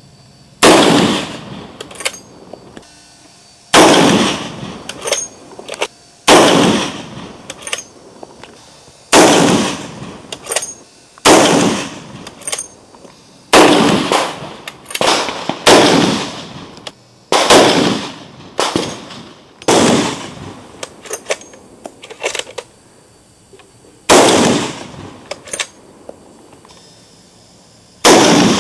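A .50 BMG bolt-action rifle firing a string of loud shots, about a dozen at uneven gaps of one to four seconds, each trailing off in a long echo.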